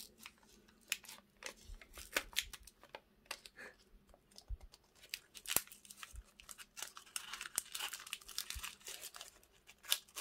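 Waxed-paper wrapper crinkling and tearing as it is peeled off a compressed ration food bar by hand, in scattered crackles that grow denser in the last few seconds.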